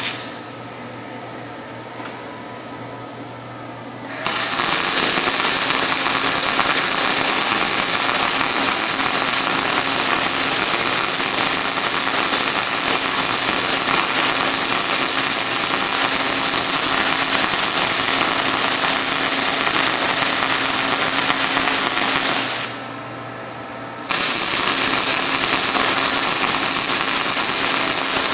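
Wire-feed welder arc crackling steadily as beads are laid on the rusted steel of an old muffler. The arc is off for about the first four seconds, strikes up, runs on, and breaks off once for about a second and a half before striking again.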